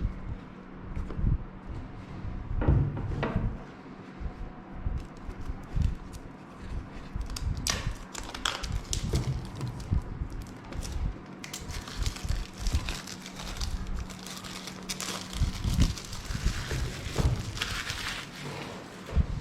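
Phone packaging being handled: crinkling plastic film and rustling cardboard with scattered small clicks and taps, busier in the second half. A faint steady hum runs underneath.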